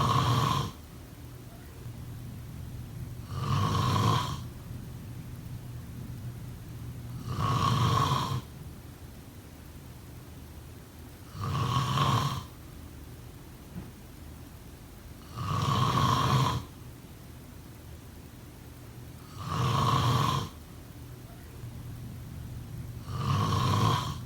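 Someone snoring in their sleep, one snore about every four seconds, each lasting about a second, with an even rhythm.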